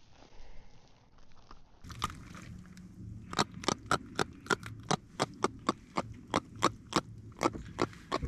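A freshly landed jack crevalle making a rapid series of sharp clicking knocks, about three or four a second, starting about two seconds in over a low steady hum.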